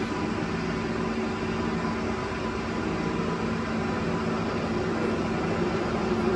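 Sculfort Maxicap Senior 380 x 4000 engine lathe running, its spindle and geared headstock giving a steady mechanical hum over an even hiss.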